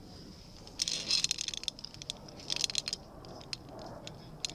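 Metal caving gear such as carabiners and descender clinking and rattling in two quick clusters of sharp clicks, with scraping, as a caver climbs among rocks.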